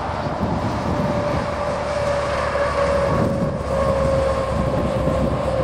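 Highway traffic: a semi truck driving past on the interstate, a steady hum that slides slowly lower in pitch over a low road rumble.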